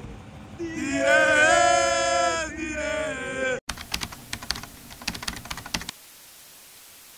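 Singing with a wavering, held melody that cuts off abruptly about three and a half seconds in. A quick run of keyboard-typing clicks follows for about two seconds as an intro sound effect, then a faint steady hiss.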